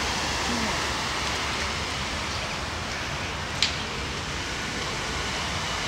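Steady rain falling, an even hiss, with one sharp tick about three and a half seconds in.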